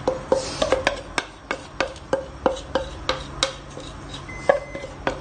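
A metal spoon tapped repeatedly against a metal container, about three sharp ringing taps a second, knocking leftover fish-marinade masala into the curry pot. A faint steady high beep starts near the end.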